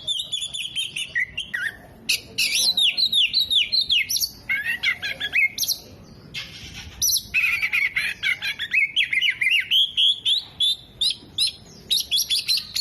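Oriental magpie-robin singing a loud, fast, varied song of rapid descending whistles, trills and sharp chips, which the bird's keeper says includes mimicked calls of sunbirds, bulbuls and lovebirds. There are two short breaks, about two seconds in and near the middle.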